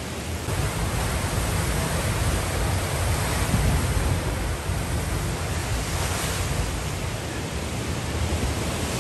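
Hurricane wind and heavy wind-driven rain making a steady, loud rushing noise, with a low rumble of wind buffeting the microphone.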